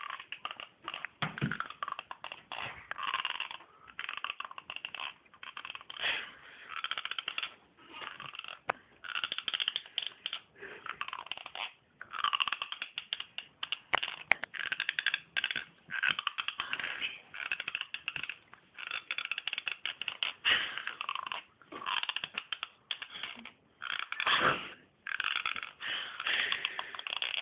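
Teeth grinding: irregular bursts of grating, scraping tooth-on-tooth noise, one after another with short pauses between.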